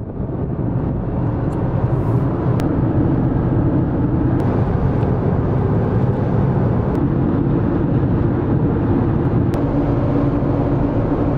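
Car driving at highway speed, heard from inside the cabin: a steady low road-and-engine rumble that fades in at the start.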